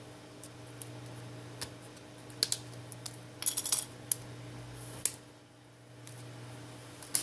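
Small sharp clicks and taps of tools and plastic parts while a smartphone is being taken apart, with a quick run of rattling clicks in the middle, over a steady low hum.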